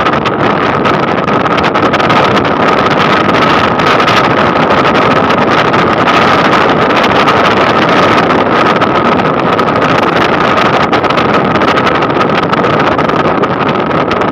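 Motor scooter riding at steady cruising speed: its engine running under a loud rush of wind on the microphone, with a steady high whine.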